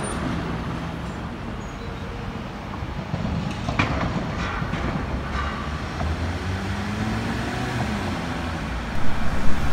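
Steady city traffic noise on a street with tram tracks, with road vehicles passing. A small van's engine comes closer near the end.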